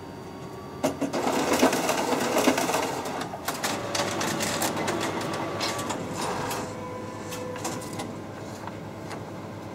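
Kyocera multifunction copier running a copy job: paper feeding through with rapid clicking and motor whirring. It starts about a second in and dies down over the last few seconds.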